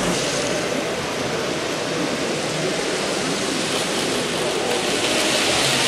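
Steady noisy hubbub of a busy exhibition hall, with faint, indistinct voices mixed in.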